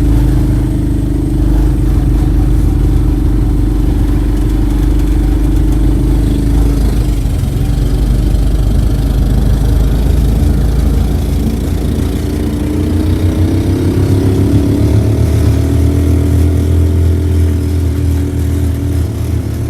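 An engine running loud and close, its pitch dropping about seven seconds in and then climbing over several seconds as it speeds up; it cuts off suddenly at the end.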